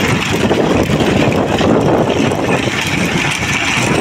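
Steady wind rush on the microphone over a running vehicle engine, recorded from a vehicle moving at speed beside racing bullock carts.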